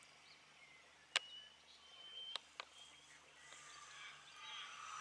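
Faint bird calls that grow busier toward the end, with a few sharp clicks about a second in and again around two and a half seconds in.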